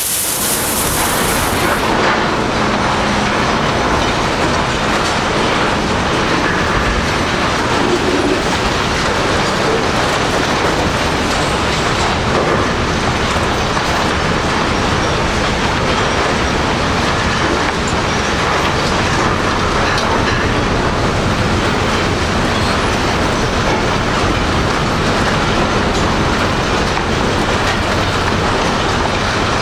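Industrial scrap-metal shredder running: a steady, loud, dense clatter and grinding of metal as scrap goes through the machine.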